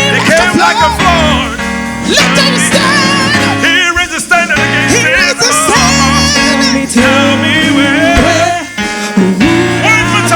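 Gospel worship song performed live: a lead voice singing with vibrato over sustained keyboard or guitar chords and bass.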